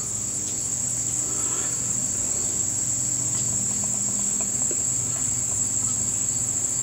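Steady, continuous high-pitched insect chorus of summer field insects, with a faint low hum beneath it.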